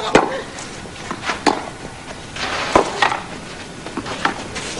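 Tennis rally on a clay court: about four sharp racket strikes on the ball, a little over a second apart, over the low murmur of a stadium crowd.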